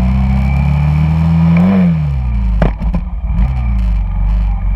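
Honda Shadow cruiser's V-twin engine running in traffic: the revs climb for under two seconds, then drop as the throttle closes and settle at a lower speed. A couple of sharp knocks come about halfway through.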